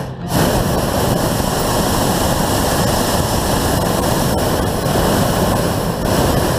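Hot air balloon's propane burner firing in one long blast: a loud, steady roar that starts a moment in and lasts about six seconds.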